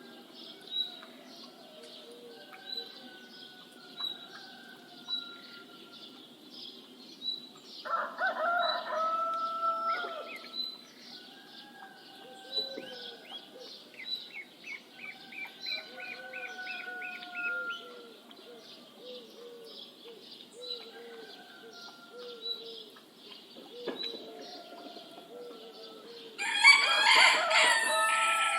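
Morning bird chorus: small birds chirp steadily over a faint background hum, with a quick trill near the middle. A rooster crows twice, once about eight seconds in and again near the end, and these crows are the loudest sounds.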